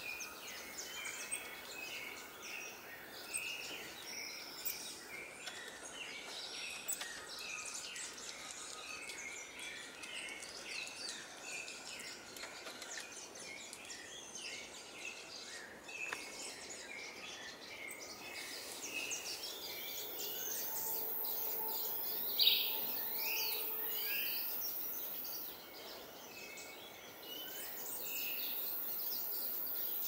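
A busy chorus of birds: many short, high chirps and calls overlapping. About two-thirds of the way in, a steady, very high-pitched hiss joins them.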